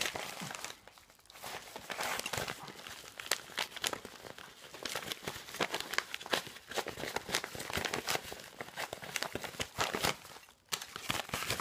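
Yellow padded mailing envelope being torn open and handled by hand: a dense run of crinkling, crumpling and tearing of the paper, with short pauses about a second in and near the end.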